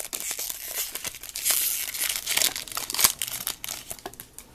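A trading card pack's wrapper being torn open and crinkled by hand: irregular crackling and rustling, busiest in the first three seconds with a sharp snap near the middle, then dying down.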